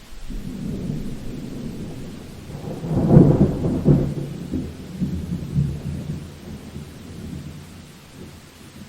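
Thunder rolling in a summer thunderstorm over steady rain: a low rumble builds, peaks with a loud crash a few seconds in, then rumbles on and fades away.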